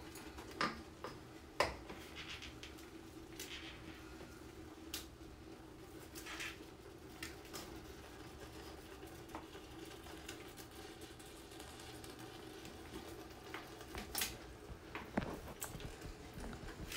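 Pieces of stockfish tipped from a plastic colander into a large stainless steel stockpot: scattered light clicks and knocks of fish and colander against the pot, the sharpest about one and a half seconds in and near the end, over a faint steady hum.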